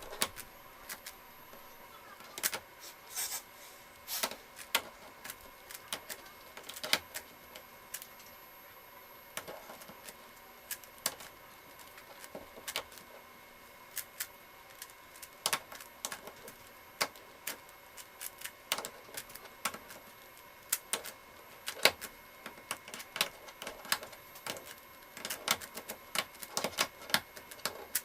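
Shengshao 5x5 speedcube being turned one-handed: irregular plastic clicks of the layers snapping round, in quick clusters with short pauses between.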